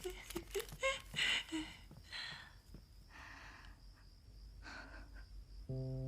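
A few soft, short breaths spaced about a second apart, then soft background music with steady held notes comes in near the end.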